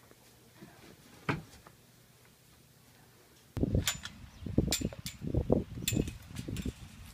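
Quiet room tone with one soft knock about a second in. About three and a half seconds in, a run of irregular footsteps and rustling thumps begins, as someone walks through brush by a chain-link gate.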